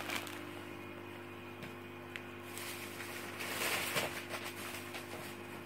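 Faint rustling of a plastic shopping bag being rummaged through, loudest a little past halfway, over a steady low hum.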